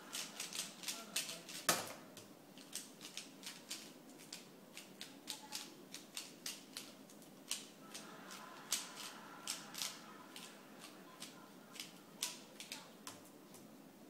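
Layers of a Dayan ZhanChi 3x3 speedcube being turned fast, a quick irregular run of plastic clicks and clacks. A single louder knock about two seconds in is the solve's end, when the laptop timer is stopped.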